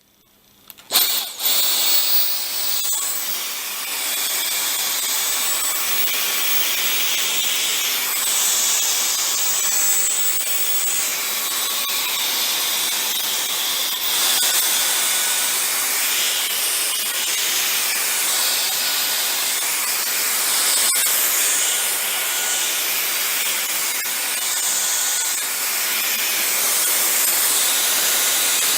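Dyson DC44 Origin cordless stick vacuum switched on about a second in, then running steadily at full power: rushing air with a high-pitched motor whine, its level swelling and easing a little.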